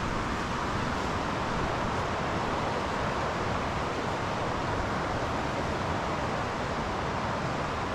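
Steady rushing of the Shumak, a fast mountain river, flowing over rocks.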